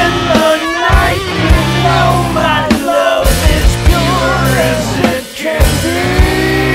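Rock song: a singing voice over a band with drums, with a brief break about five seconds in.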